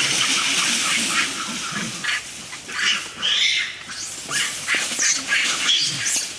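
Macaques screeching in repeated short, harsh calls as they chase and scuffle through dry leaf litter.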